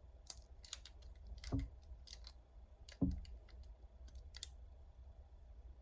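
Small plastic Lego pieces and a minifigure clicking and tapping as they are handled and fitted into a Lego car, in quick irregular clicks. Two brief soft low sounds come about a second and a half in and at three seconds.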